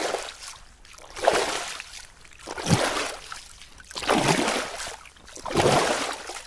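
Swimming sound effect: water splashing in regular strokes, about one every second and a half.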